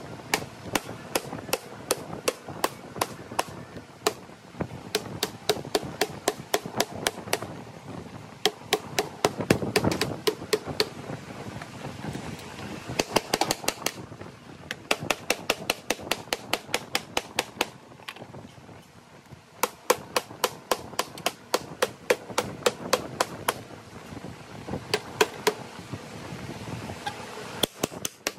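Sheet metal being hammer-formed by hand over an MDF hammer form, its edge struck again and again with a wooden mallet, soft hammers and a caulking tool to roll it over the form's radius. Quick strikes, about three or four a second, in runs broken by short pauses.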